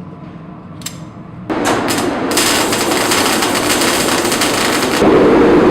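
Rapid, continuous hammer blows on a hot steel billet during forging, starting about a second and a half in and growing louder near the end.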